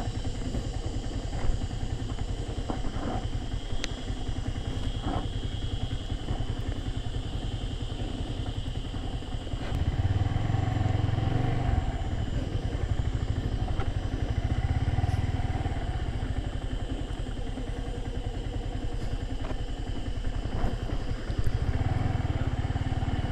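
Yamaha R15 motorcycle's single-cylinder engine running under way on a rough dirt trail, the engine note swelling louder about ten seconds in and again near the end as the throttle opens. A few sharp clicks and knocks sound over the drone.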